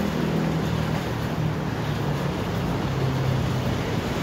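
Steady rumble of city road traffic with a low hum.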